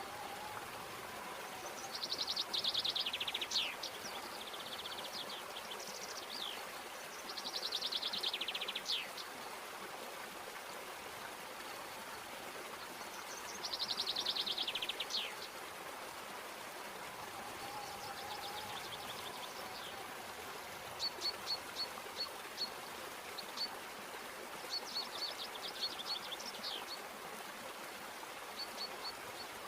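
A stream running steadily, with a songbird singing over it. Three phrases of rapid trills ending in falling notes come in the first half, then runs of short, repeated high notes near the end.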